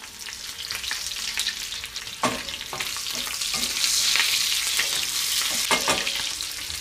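Beef köfte and green pepper pieces sizzling in hot foaming butter in a stainless steel frying pan, stirred with a wooden spoon. The sizzle swells about halfway through, and there are a few short knocks.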